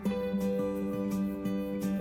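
Background music: gentle acoustic guitar, plucked and strummed.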